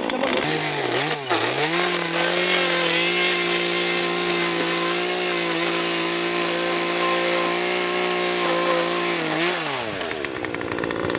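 Two-stroke chainsaw engine blipped a couple of times, then held at high revs in a steady whine for about seven seconds before being let off and dropping back down near the end.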